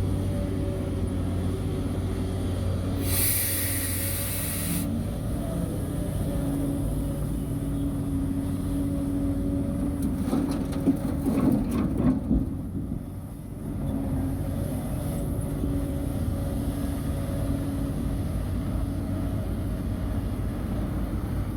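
Diesel engine of heavy earthmoving machinery running steadily. About three seconds in, a sharp hiss of released air lasts roughly two seconds. Around ten to twelve seconds in comes a cluster of clanks and knocks.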